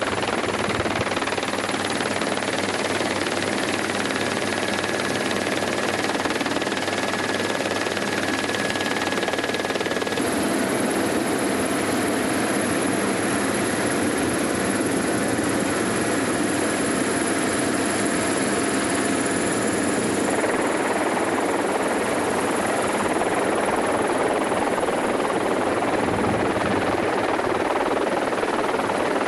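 Steady whirring noise of aircraft rotors overhead: an even hiss with a faint high whine whose pitch shifts about ten seconds in.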